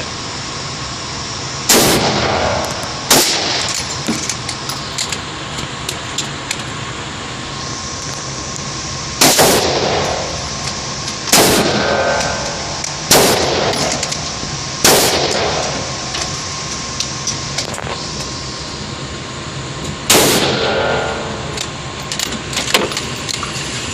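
.22 Magnum rifle firing seven single shots at uneven gaps of one to five seconds, each a sharp crack with a ringing echo tail. Fainter cracks fall in between.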